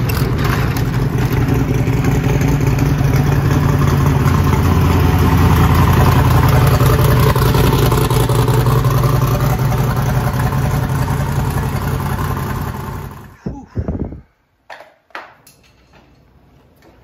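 Engine of a race-built Chevy S-10 pickup, fuelled on E85, running steadily, then shut off about thirteen seconds in. A few door clunks follow as the driver gets out.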